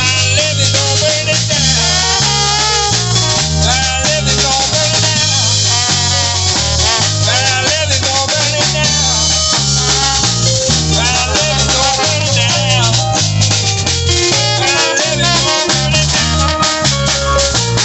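Live band playing New Orleans-style music: a drum kit driving a steady beat under bass, keyboard and trombone.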